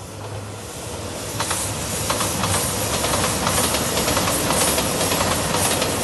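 A JR Shikoku 2700 series diesel limited express train approaching and passing, growing louder over the first two seconds. A steady rushing noise is overlaid with the wheels clicking over the rail joints.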